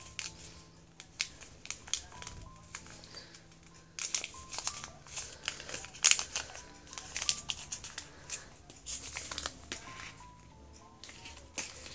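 Origami paper crinkling and crackling in irregular short bursts as a folded paper cup is opened and creased by hand, over quiet background music.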